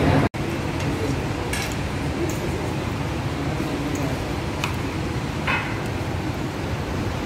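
Restaurant dining-room din with a few light clinks of dishes and cutlery scattered through it. The sound drops out for an instant just after the start.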